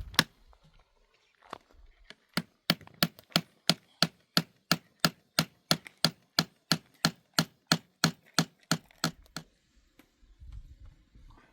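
A blade chopping against wood: a steady run of sharp strikes, about three or four a second, lasting around seven seconds and stopping abruptly, followed by a low rumbling noise near the end.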